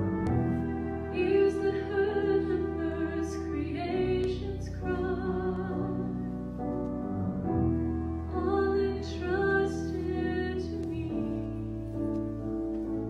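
A woman singing a solo with held, wavering notes, over instrumental accompaniment with a steady bass line.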